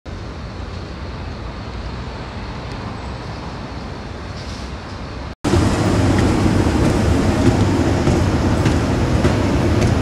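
Steady ambient rumble, then after a cut about halfway through, a louder steady mechanical hum and rattle of a running escalator.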